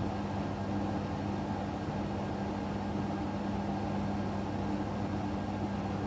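Hoover Sudslock washing machine on its final spin: a steady hum from the spinning drum and motor, with a constant low tone.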